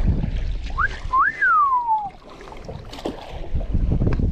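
A person whistling: a short rising note, then a longer one that rises and slides down, like a "wow" whistle. Low wind and water noise sits beneath it.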